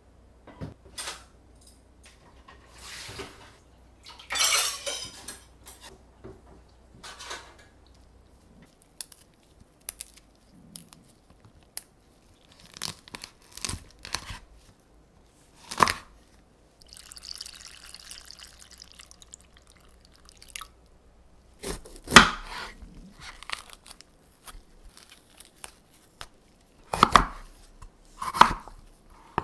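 Chef's knife cutting red chili peppers and then a red bell pepper on a wooden cutting board: single knife strikes spaced out, the loudest ones near the end. Small clicks, a short rustle early on and a soft hiss in the middle fall between them.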